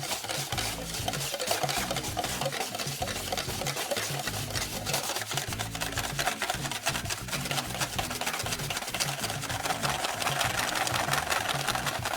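Slime being stirred and worked, giving a steady stream of rapid, sticky wet clicks.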